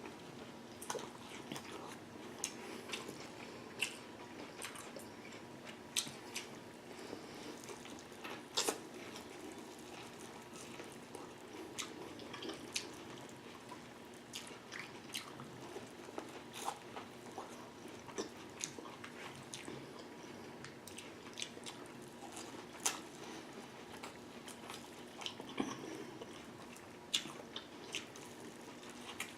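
Close-miked mukbang eating of a saucy seafood boil: wet smacking and chewing with irregular sharp clicks, a few louder than the rest, over a faint steady hum.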